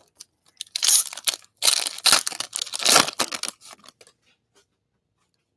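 A foil trading-card pack being torn open and its wrapper crinkled, in a run of crackly tearing bursts lasting about three seconds.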